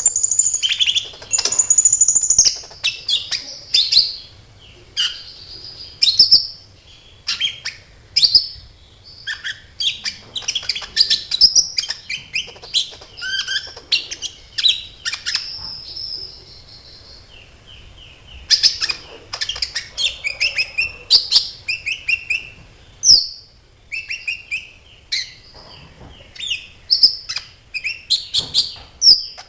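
Kolibri ninja (a small sunbird) singing a fast, high, chattering song of quick chirps and trills with a few longer whistled notes, broken by a short pause near the end. This is a lure song (pancingan), played to set other sunbirds singing.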